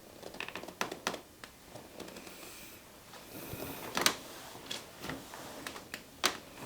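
Scattered sharp clicks and taps over soft rustling, from hands working over skin, clothing and the treatment table during a deep-tissue massage. The loudest click comes about four seconds in.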